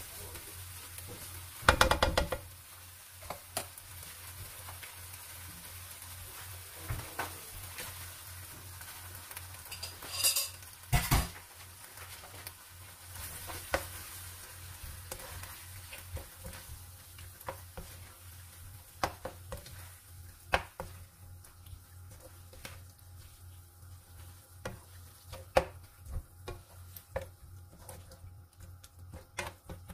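Chopped tomatoes and chicken pieces sizzling in a nonstick wok as they are stirred with a plastic spatula. Short knocks and scrapes of the spatula against the pan come throughout, with louder clatters about two seconds in and again around ten to eleven seconds in.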